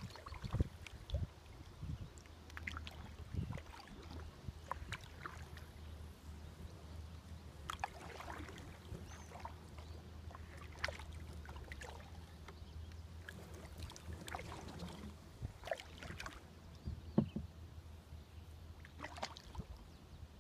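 Kayak paddle in calm river water: scattered small splashes and drips every few seconds as the blade dips and lifts, over a faint steady low rumble.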